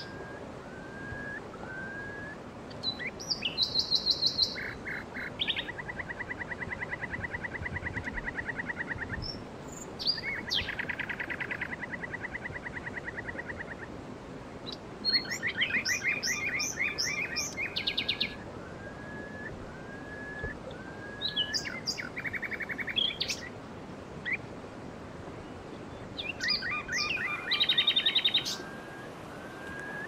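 Songbirds singing: bursts of fast trills and chirps come every few seconds, a couple of them drawn out into long even trills, with short rising whistled notes in between, over a faint steady hiss.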